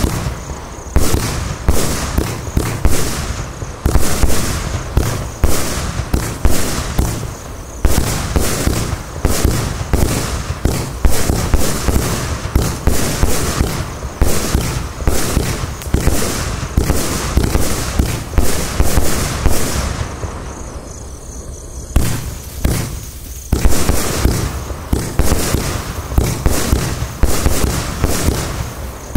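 Zapał IC25-64-2 compound fireworks cake firing 25 mm shots in rapid succession: a dense run of launch thumps and star bursts. About twenty seconds in there is a brief lull before the shots resume.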